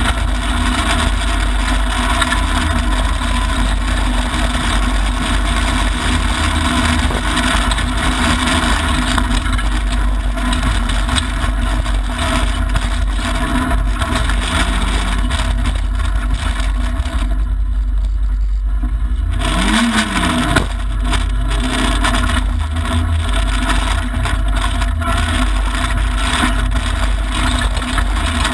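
Mitsubishi Lancer Evolution IX rally car's turbocharged four-cylinder engine running hard, with gravel and tyre noise, heard from inside the cabin. About two-thirds through, the hiss drops away for about two seconds, then the engine pitch rises and falls quickly.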